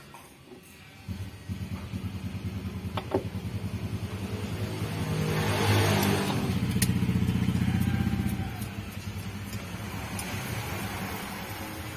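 A vehicle engine running close by with a quick pulsing beat, growing louder toward the middle and easing off near the end, like a vehicle passing. Two sharp clicks stand out, about three and seven seconds in.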